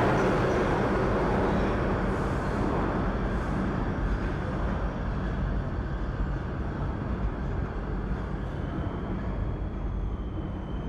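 New York City subway train pulling out of the station, its rumble and rail noise fading steadily as it moves away. A faint high whine comes in near the end.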